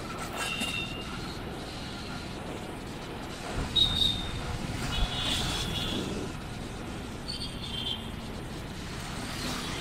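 Road and traffic noise heard while driving through city streets: a steady rumble of vehicles, with a few short high-pitched tones and a couple of brief louder knocks.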